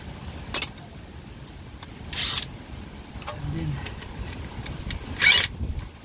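Hand work on a car's front lower control arm: a sharp click about half a second in, then two short hissing bursts about two and five seconds in, the second one the loudest.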